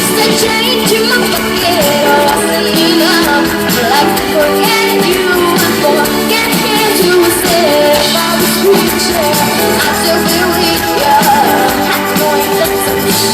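Live pop band playing with a lead singer's wavering sung melody over the full band, loud and steady.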